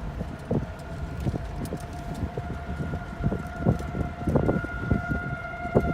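Outdoor warning siren sounding a steady tone during a siren test, faint at first and growing louder toward the end. Irregular thumps and a low rumble sound underneath it.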